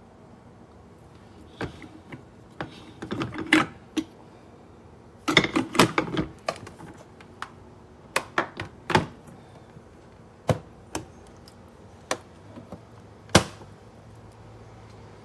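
Clicks, knocks and clatter of things being handled. They come in two busy clusters about 2 to 4 seconds in and around 5 to 6 seconds in, then as separate knocks, the sharpest near the end.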